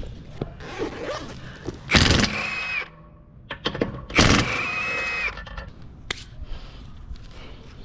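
Cordless power tool run in two bursts of about a second each, with a steady high whine, among scattered knocks and clanks.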